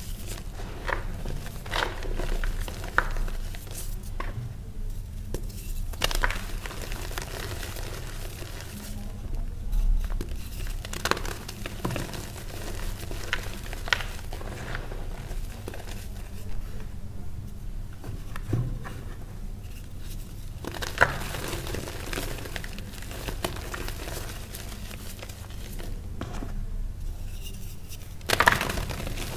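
Hands crushing and crumbling reformed gym chalk and its loose powder: a soft, dry crunching with scattered small cracks. Chalk bars are broken apart, and the loudest crack, near the end, is a bar snapping in two.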